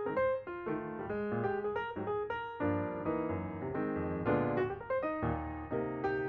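Background piano music: a brisk line of single notes over low chords that grow fuller about halfway through.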